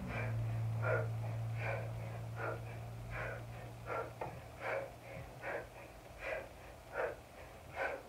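A woman's sharp, rhythmic breaths during kettlebell swings, one with each swing, a little under one a second, about ten in all. A low steady hum fades out over the first half.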